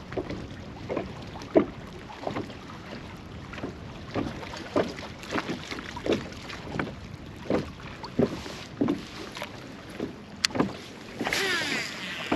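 Water lapping and slapping against the hull of a small fishing boat in short strokes about every second, over a low steady hiss, with a louder rushing hiss near the end.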